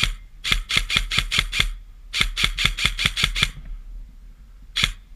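Airsoft gun firing rapid shots, about six a second, in two strings of seven or eight, with a single shot at the start and another near the end.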